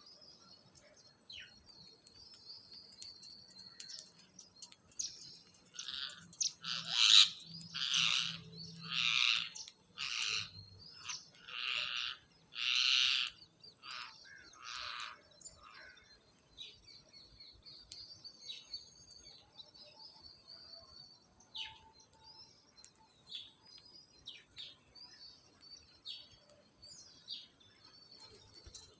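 Parrots calling: a run of about eight loud calls spread over some ten seconds, with faint chirping throughout.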